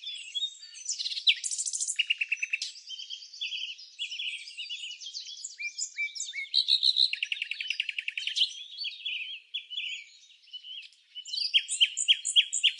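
Several songbirds singing at once: rapid trills and short chirps overlapping. The song eases off briefly, then ends with a quick run of loud, repeated notes near the end.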